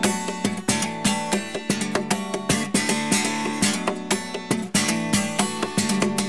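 Acoustic guitar played flat on the lap in a percussive style: the right hand slaps the body and strings in a quick beat of sharp hits while the left hand's fretted notes ring on.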